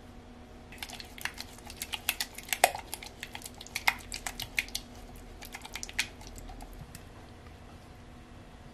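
A silicone spatula stirring miso paste into liquid in a plastic measuring cup: a rapid, irregular run of clicks, taps and wet scrapes against the cup's sides, dying away after about seven seconds.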